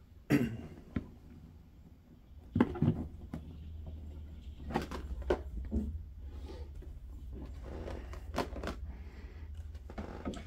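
Large cardboard game box being opened by hand: a few knocks and scrapes as the lid comes off and the card insert inside is lifted out, over a low rumble.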